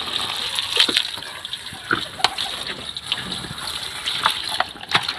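A stream of running water pouring onto guavas in a plastic colander as hands turn and rub the fruit to wash it. It makes a steady splashing rush with irregular sharp splashes and knocks.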